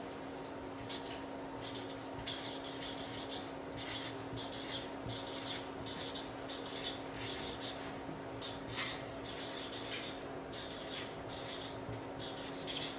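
Felt-tip marker scratching across a large presentation cheque as words are written, in short strokes at about two a second starting about two seconds in, over a steady low hum.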